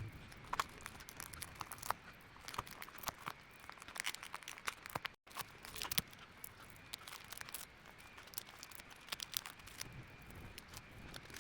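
Badly cracked iPad digitizer glass crackling and crunching in dense, irregular small clicks as it is pried and peeled off the adhesive. The sound breaks off for a moment about halfway through.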